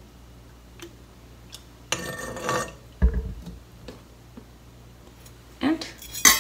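Kitchen handling sounds as light soy sauce is measured from a plastic bottle with a metal spoon into a pot: a few faint clicks, a short pour about two seconds in, a knock about three seconds in as the bottle is set down, and clattering of utensils near the end.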